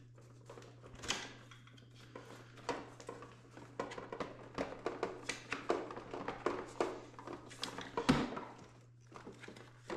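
Rustling, scraping and light taps of cardboard and packing being handled as a boxed power supply in its cardboard holder is lifted out of its packing insert and turned over, with a louder knock about eight seconds in.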